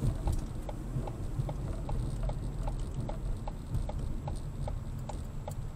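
Car's turn-signal indicator ticking steadily, a little under three clicks a second, over the low rumble of the car's engine and road noise inside the cabin as it slows into a turn.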